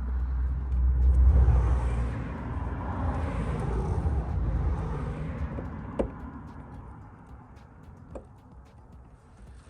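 A passing vehicle: a low rumble with a hiss swells about a second in, then fades away over several seconds. A single sharp click comes about six seconds in.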